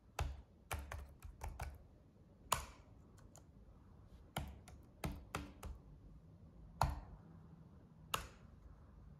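Irregular sharp clicks and taps, about fifteen in all, coming in small clusters with pauses between, some with a dull low thump.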